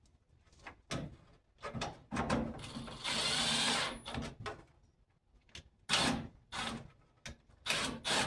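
Handling knocks and clatter of a plastic door panel and hardware, with a cordless drill/driver running for about a second near the middle.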